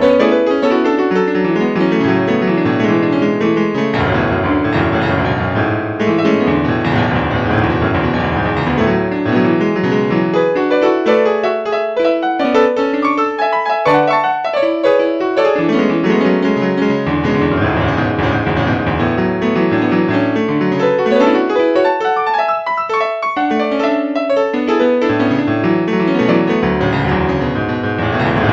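Instrumental background music led by piano, playing continuously with many quick notes.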